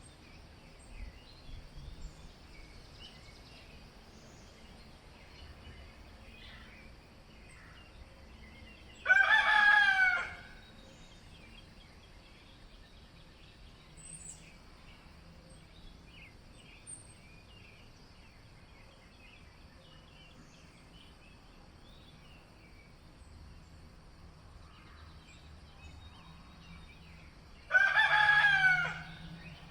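A rooster crowing twice, about twenty seconds apart, each crow a loud pitched call of about a second and a half. Faint small-bird chirps between the crows.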